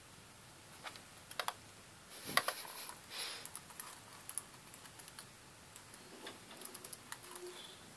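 Typing on a computer keyboard: scattered, uneven keystrokes with short pauses between them, and a louder flurry about two and a half seconds in.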